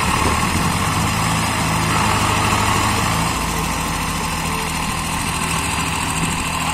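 Swaraj 855 tractor diesel engines running steadily, the beat of the engine shifting slightly a little over three seconds in.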